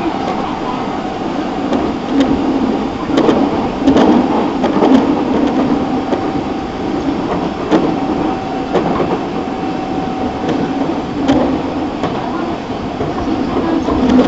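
Nagoya Municipal Subway 5050 series train (unrenewed set 5176H) running between stations: a continuous rumble of wheels on rail. A steady motor whine comes through in the middle, and sharp clacks come now and then as the wheels cross rail joints.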